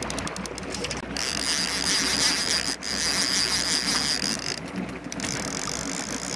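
Fishing reel on a trolling rod clicking rapidly as a hooked muskie is fought. About a second in this turns to a steady high buzz lasting about three and a half seconds, the drag giving line as the fish pulls, before brief clicking returns. A steady low engine hum runs underneath.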